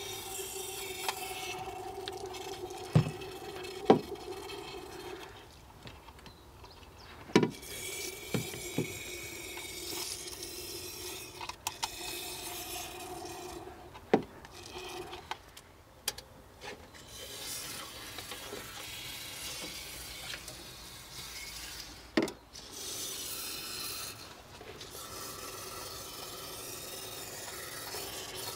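Aerosol can of cannon-grease anti-corrosion compound spraying through a thin extension tube: a sputtering hiss with a faint steady tone, in spells of several seconds broken by short pauses. A few sharp knocks come from the tube and can being handled.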